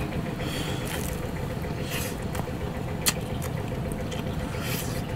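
Eating sounds as crispy fried meat is bitten and torn apart with the teeth: several short crunches, the sharpest about three seconds in, over a steady low rumble.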